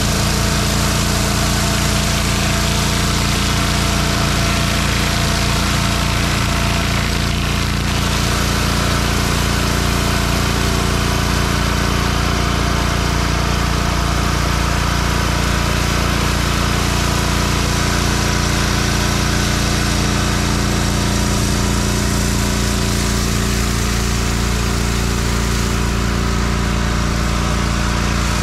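Small petrol engine of a pressure washer running steadily at constant speed, stopping abruptly at the end.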